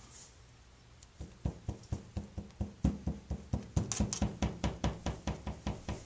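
Rapid knocking on bathroom wall tiles, about five taps a second, starting a little over a second in: tiles being tapped to check them, which turn out to be loose.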